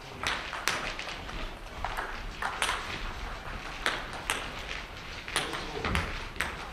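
Table tennis rally: the ball clicking sharply off the table and the rubber-faced bats, several quick ticks a second at an uneven pace, ringing briefly in a large hall.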